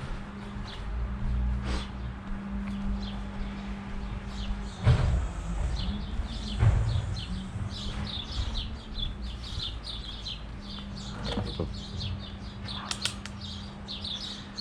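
Small birds chirping in quick repeated notes, with a few sharp knocks and clicks, the two loudest about five and seven seconds in, over a steady low hum.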